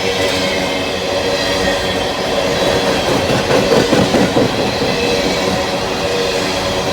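Empty coal train rolling past: wheels of the hopper cars clicking over rail joints, busiest about three to four and a half seconds in, over a steady ringing hum from the train.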